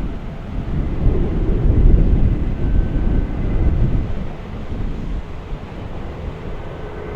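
Airbus A330 airliner's jet engines rumbling overhead, mixed with gusty wind on the microphone; a faint steady engine whine comes in about two and a half seconds in.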